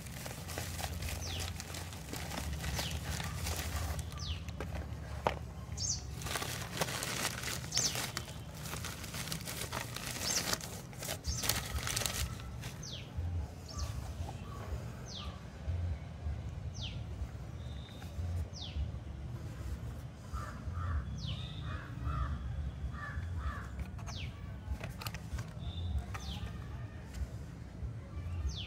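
Plastic courier mailer and bubble wrap crinkling and crackling as they are torn open, for about the first twelve seconds. Then it goes quieter, with repeated short falling bird chirps and a few calls over a steady low hum.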